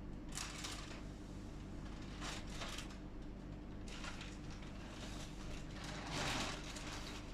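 A sleeping person breathing noisily and snoring softly: four breaths in and out, the loudest about six seconds in. A steady low hum runs underneath.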